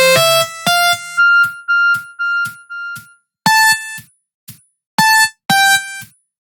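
Samsung SGH-A127 polyphonic ringtone playing: a synthesized melody of short, bright, separate notes. A busy phrase with a bass part opens it, four notes at one pitch follow, each quieter than the last, then a few single notes before the opening phrase comes round again just after the end.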